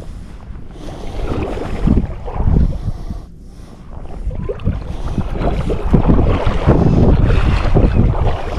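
Wind buffeting the microphone over river water splashing and rushing, in irregular surges that grow loudest past the middle.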